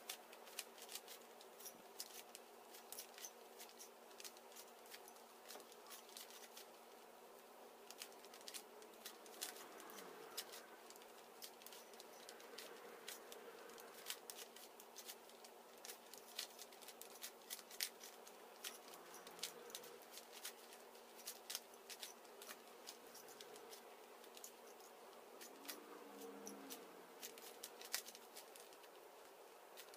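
Rubik's Cube being turned by hand, a steady run of light, irregular plastic clicks as the layers snap round, over a faint steady hum.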